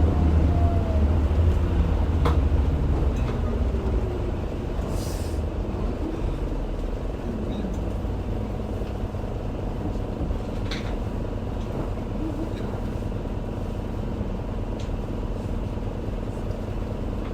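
Isuzu Erga city bus heard from inside the cabin while under way. The diesel engine runs loud and heavy for the first few seconds, then eases to a quieter, steady drone with road noise and a few faint clicks and rattles.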